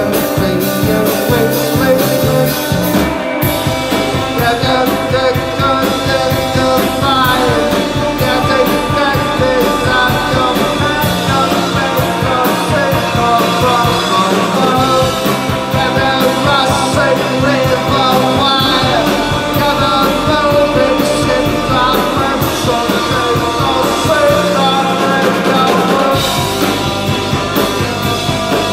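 A rock band playing live, with a singer over drums and other instruments. The drum hits come in a steady beat throughout.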